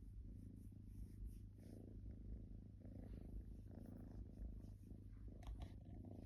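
Domestic cat purring, a low rumble that swells and eases in a slow rhythm, with a brief rustle near the end.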